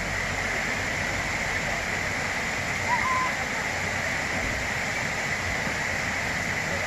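Steady rushing of a mountain stream, flowing water at an even level.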